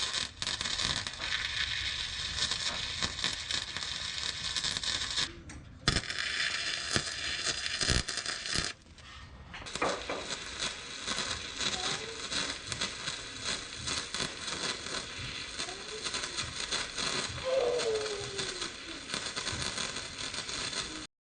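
Steady crackling hiss with scattered clicks, in three stretches broken by short pauses about five and nine seconds in, cutting off abruptly at the end.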